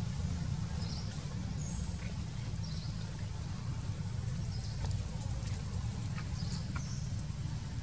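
Outdoor ambience: a steady low rumble, with short high chirps every second or two and a few faint clicks.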